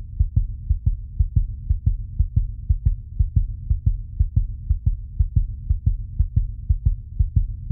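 Heartbeat sound effect: a steady, regular lub-dub of low beats, about three beats a second, over a low hum.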